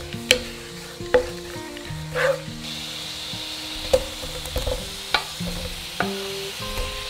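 Pickled takana mustard greens frying in sesame oil in a nonstick pan, stirred with a wooden spatula, with several sharp knocks. Cut green peppers go into the hot oil partway through, and the sizzle grows louder from about three seconds in.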